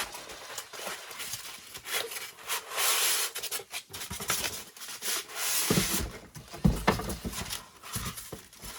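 Cardboard packaging rubbing and scraping as a boxed figurine is worked out of it, in two longer scraping passes with scattered clicks and a sharp knock a little before the end.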